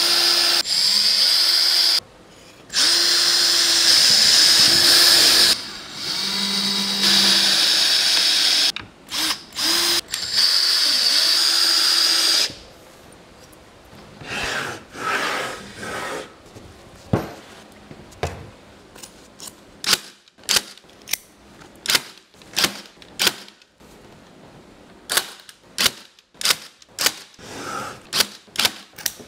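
Power drill running in several bursts, its motor whine starting and stopping, for the first dozen seconds. Then a run of sharp clicks or knocks, about two a second.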